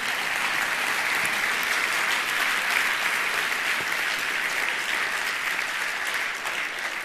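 Church congregation applauding: a dense, steady patter of many hands clapping at an even level.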